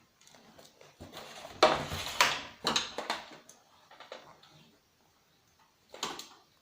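Hand tools working on a CRT TV's plastic casing: irregular clicks, knocks and scrapes as screws are worked loose. The sharpest knocks come a little under two seconds in, a few more follow over the next second or so, and one comes near the end.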